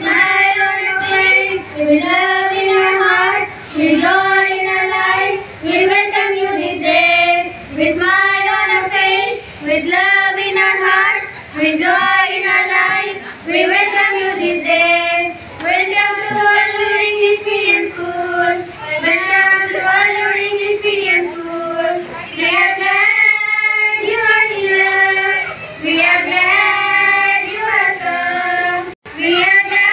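Young female voices singing a song together in unison, in melodic phrases a second or two long with short breaks between them.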